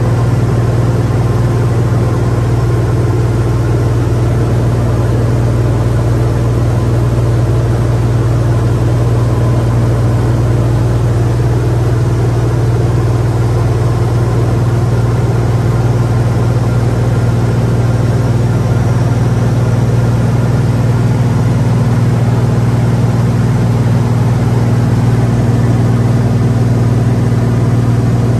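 Steady low drone of a 1982 Cessna P210N's turbocharged six-cylinder Continental engine and propeller in flight, heard inside the cockpit, unchanging throughout.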